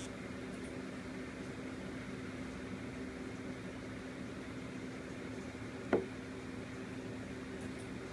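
HTC Butterfly S phone camera's autofocus lens module vibrating in the dark with a steady low hum, the lens hunting back and forth and unable to lock focus: a faulty autofocus. One sharp click about six seconds in.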